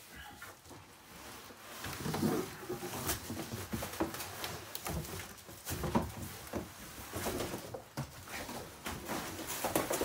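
A cabinet being pulled out of its cardboard shipping box: plastic wrapping rustles and cardboard scrapes, with irregular knocks of the cabinet against the box. It starts quietly and becomes busy about two seconds in, with the sharpest knocks about two and six seconds in.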